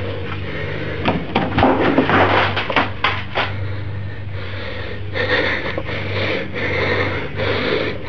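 A quick run of sharp knocks and rattles about a second in, lasting some two seconds, then rapid, even breathing close to the microphone, under a steady low hum.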